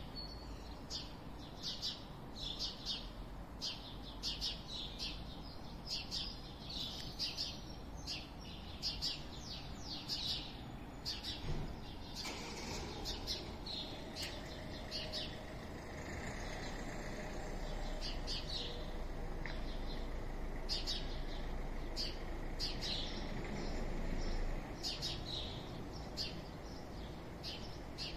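Small birds chirping over and over, short sharp calls over a steady low rumble of outdoor town background. The rumble swells in the second half and drops back suddenly near the end.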